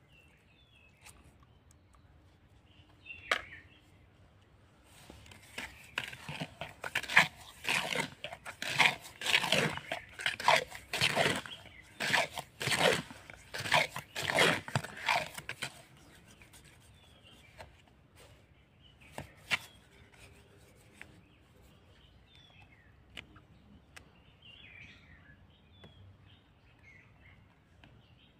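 Small trowel stirring and scraping wet grout mix in a bucket. A rapid, irregular run of rough scraping strokes starts about five seconds in and lasts about ten seconds, then it goes quiet again.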